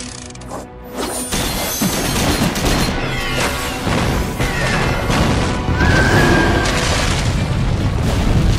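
Action-scene soundtrack: driving music under crashing impacts and booms, with stone masonry smashing apart near the end. It is quieter for about the first second, then loud and dense.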